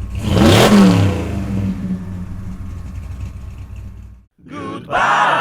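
Car engine sound effect: a rev sweeps past with its pitch falling fast, then settles into a steady low rumble that fades away. A different pitched sound starts near the end.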